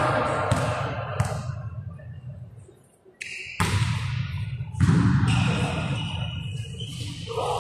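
A volleyball being played in a sports hall: a few sharp, echoing thuds of the ball being struck during a rally, the first of them starting a little after three seconds in.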